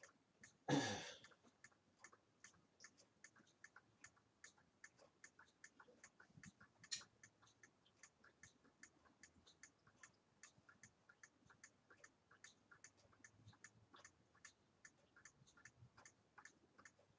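Near silence in a small room, with a faint, rapid ticking of several light ticks a second throughout. A short burst of noise comes about a second in, and a single sharper click near seven seconds.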